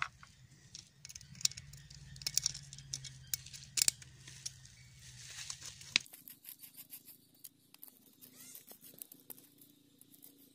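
Scattered light metallic clicks and scrapes of small screws being fitted into a carburetor's top cover and a screwdriver working them in.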